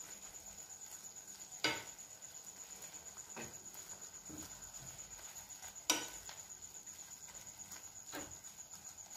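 Prawn fry cooking on low flame in a nonstick pan, a faint sizzle as a spatula stirs the prawns, with four short knocks of the spatula against the pan, the loudest about six seconds in.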